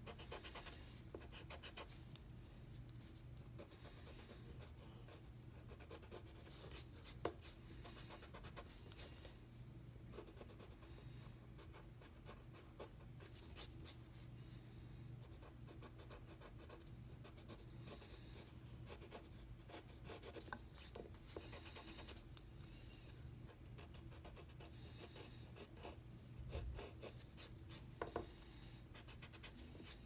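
Yellow wooden pencil scratching on paper in quick, short, irregular strokes, faint.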